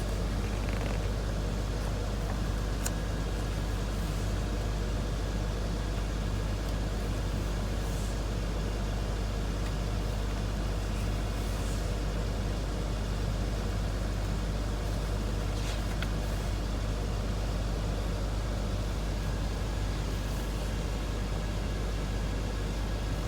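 Steady low mechanical hum with an even background noise and a faint constant high whine, unchanging throughout, with a few faint ticks.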